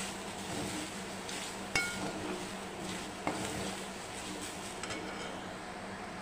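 Perforated metal spatula stirring and scraping grated coconut being sautéed in a metal pan, with a steady scraping. A sharp ringing clink of the spatula against the pan comes about two seconds in, and a lighter knock a second and a half later.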